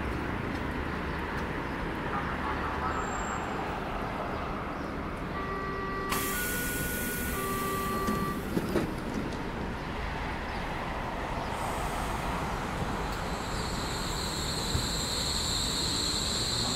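Modernised Berlin S-Bahn class 480 electric train at a platform: a short series of door-warning tones about five seconds in, with a hiss, then a few knocks as the doors shut. The train pulls away with the high chirp of its replacement traction electronics and a rising motor tone near the end.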